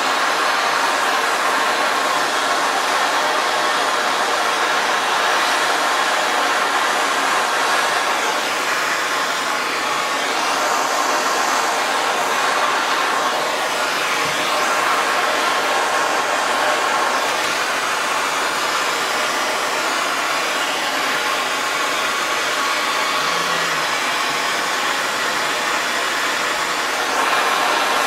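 Handheld gas soldering torch burning with a steady hiss, heating a fluxed copper sweat joint on a new water valve until it is hot enough to take solder.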